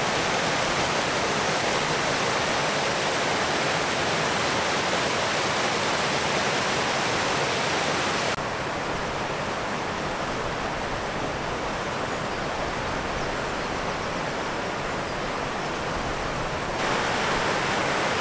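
Water rushing steadily over a weir, a constant full hiss. About eight seconds in the sound turns slightly quieter and duller, and near the end it is full again.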